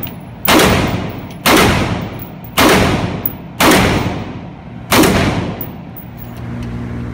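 AR-15 rifle firing five single shots, about one a second, each shot ringing on in the enclosed indoor range. After the last shot a steady low hum takes over near the end.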